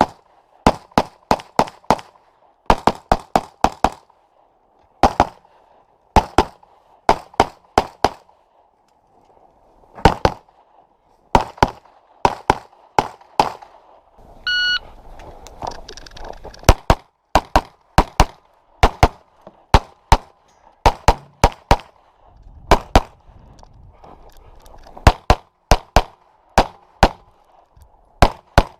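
Rapid pistol fire in quick pairs and strings, as in a practical pistol stage run. About halfway through comes a single electronic shot-timer start beep, and the shooting picks up again soon after.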